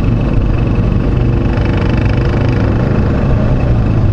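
Motorcycle engine of a tricycle (motorcycle with passenger sidecar) running steadily under way, heard from the sidecar along with road noise.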